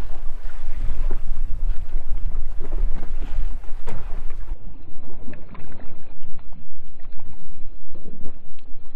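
Wind buffeting the microphone in a steady low rumble, with choppy water slapping and splashing against the side of an inflatable boat.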